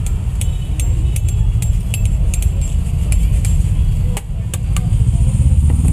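Steel box grater grating cheese: short, sharp metallic scraping strokes, about two or three a second, over a steady low rumble of road traffic.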